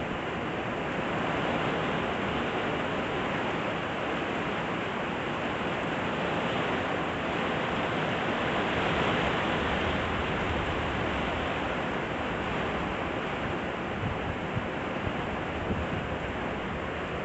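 Storm wind blowing hard with wind-driven rain, a steady rushing noise that swells a little about nine seconds in.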